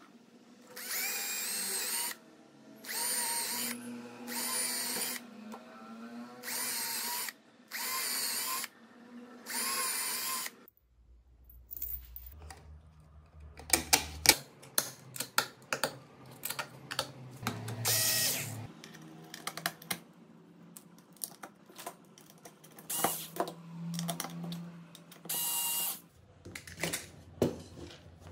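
Cordless drill drilling into plywood in about six short bursts, each about a second long, over the first ten seconds. After that come light clicks and knocks from handling the steel hinge and screws, and a few more brief bursts of a power tool near the end.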